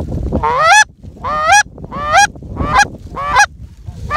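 Zink Power Clucker, a short-reed Canada goose call, blown in a quick run of about six short honks, each breaking sharply from a low note up to a high one, roughly one and a half per second.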